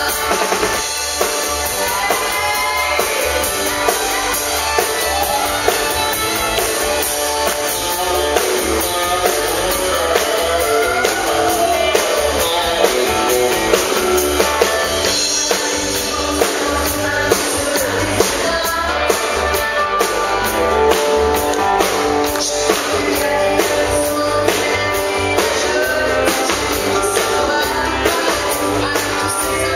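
Live country band playing: a woman singing over electric guitar, fiddle and a drum kit keeping a steady beat.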